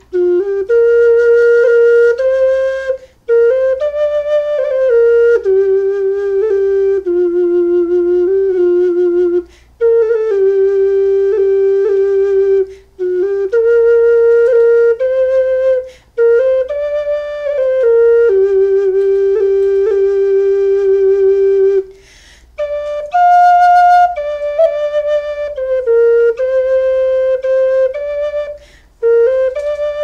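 Charlie Hind's handmade wooden Tenor Obelisk inline ocarina playing a folk tune, played close to the microphone. Clear, held notes move step by step in phrases, broken every few seconds by short pauses for breath.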